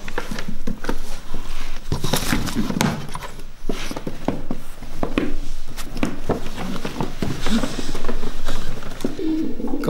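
Irregular rustling, tapping and knocking as paper pedigree sheets are handled and held up.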